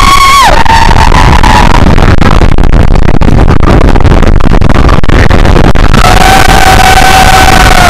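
Mine-train roller coaster clattering and rushing along its track, loud and distorted, with two high-pitched wails over it: a short one at the start and one held about two seconds near the end, dropping in pitch as it stops.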